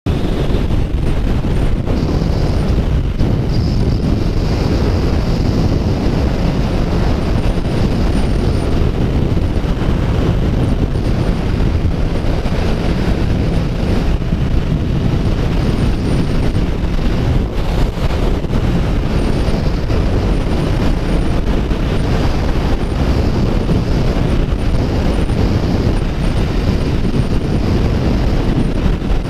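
Heavy wind noise on the microphone at road speed, steady throughout, with a Kawasaki Ninja 1000's inline-four engine running underneath at a steady cruise.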